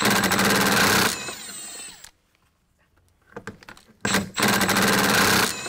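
Milwaukee stubby 3/8-inch cordless impact wrench backing out 10 mm bolts, run twice. Each run is a loud rapid hammering of about a second that eases into a lighter whir winding down, with about two seconds of quiet between the runs.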